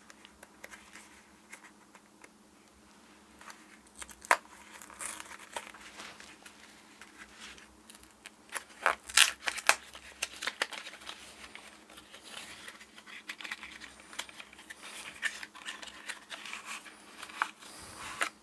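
Small retail box being opened and its packaging handled: crinkling and rustling, with scattered sharp clicks and snaps, starting a few seconds in.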